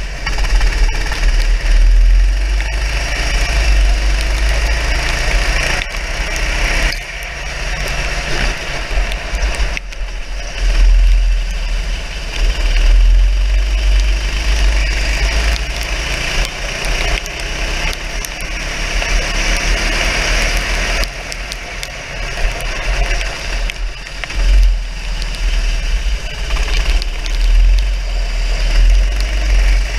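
Racing kart engine heard from the kart's own onboard camera, its note rising and falling as the driver opens and lifts off the throttle through the corners, over a heavy low rumble, on a wet track.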